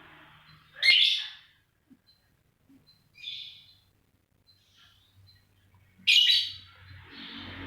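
Lovebird calling: two loud, short, shrill calls, one about a second in and one near the end, with a fainter call between them.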